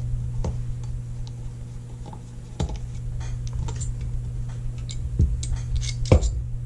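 Small steel revolver parts and hand tools clicking and tapping as they are handled on a bench mat, scattered single clicks with a sharper knock about six seconds in, over a steady low hum.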